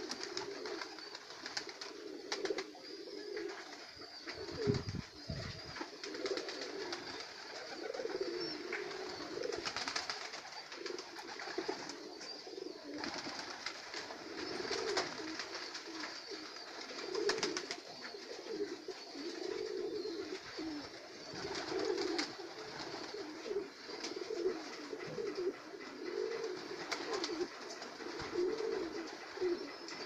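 Domestic pigeons cooing continuously, several birds overlapping, with scattered light clicks and a short low thump about five seconds in.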